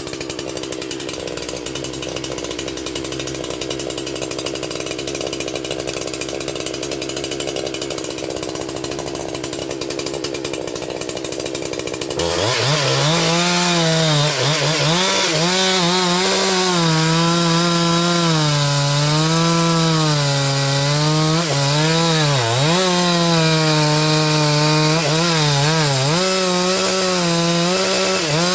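Chainsaw cutting into a large tree. For the first twelve seconds a dull, steady machine sound; then it switches suddenly to a louder, close chainsaw whose pitch dips and recovers again and again as the chain bogs in the wood.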